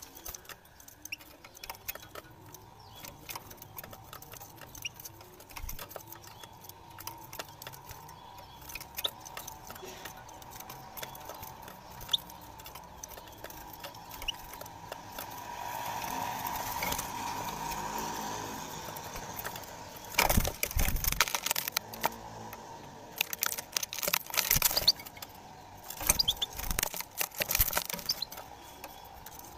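A European goldfinch moving about in a wire cage: scattered small clicks and taps of its feet and beak throughout. In the last third come three loud flurries of wing-flapping against the cage bars.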